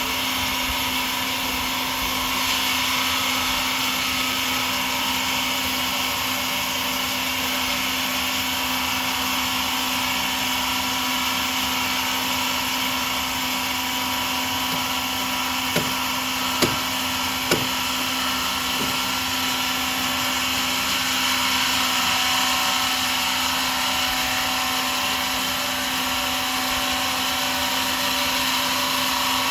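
Sawmill saw running steadily with a constant hum and a high hiss, with three sharp knocks about a second apart around the middle.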